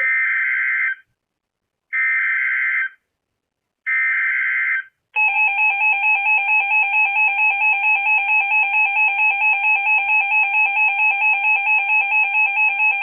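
Emergency Alert System activation: three one-second bursts of SAME header data, a harsh digital screech, two seconds apart. About five seconds in, the two-tone EAS attention signal starts, loud and pulsing about four times a second.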